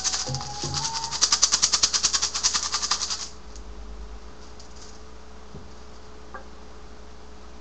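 Hand rattle shaken rapidly in a steady rhythm, stopping abruptly about three seconds in; a faint steady electrical hum follows.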